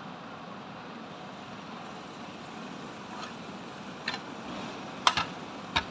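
Steady background noise with a few short sharp clicks in the second half, the loudest a close double click about five seconds in.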